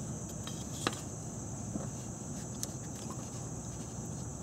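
A few faint clicks from the plastic transmission speed sensor being handled at its bore in the transmission case, over a steady high-pitched hiss.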